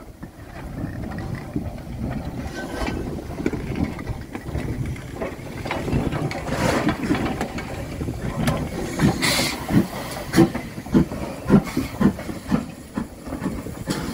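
Ivatt Class 2MT 2-6-2T steam tank locomotive No. 41298 moving slowly past at close range, with a steady hiss of steam. In the second half it gives a series of sharp, distinct beats about twice a second and a short, loud burst of hiss.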